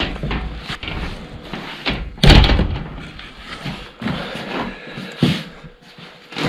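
A series of irregular knocks and thumps, like hard objects being bumped or set down, the loudest about two seconds in.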